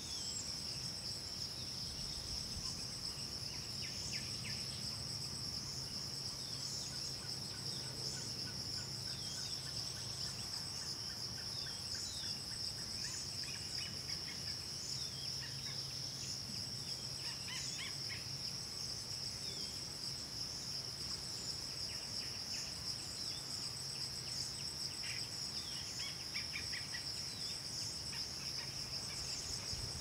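Steady, high-pitched insect drone, with a fainter and higher insect buzz pulsing in short repeated bursts above it. Scattered short bird chirps come and go.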